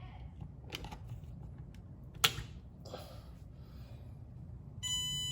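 A few sharp clicks, the loudest about two seconds in, then near the end a short electronic beep from the treadmill's console powering up as the restored outlet feeds it.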